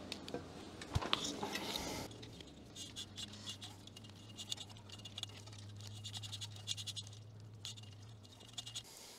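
Insulated electrical wires being fed by hand through the mast's tubing: a run of small scratching and rubbing sounds as the wire slides and is handled.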